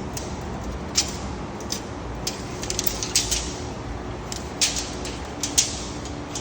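Irregular sharp clicks and crunches, about a dozen, scattered over a steady background hiss and low hum.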